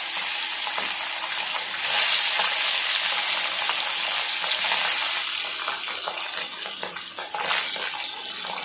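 Pabda fish sizzling as they fry in hot mustard oil in a metal kadai. The sizzle jumps louder each time another fish goes into the oil, about two seconds in and again about four and a half seconds in, then gradually dies down.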